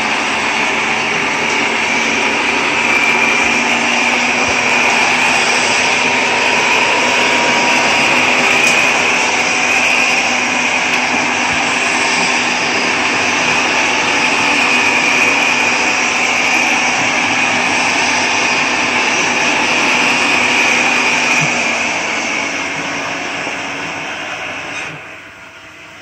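ILIFE A4S robot vacuum cleaner running on a hard wood floor: a steady whir of its motor and suction with a high hiss. It grows quieter near the end.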